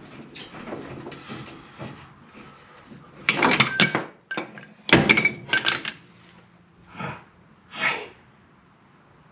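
Steel C-frame ball joint press, its cups and the freed lower ball joint clinking and clanking as they come off the lower control arm. There are two bunches of sharp ringing metal clinks, about three seconds in and again about five seconds in, with lighter knocks before them.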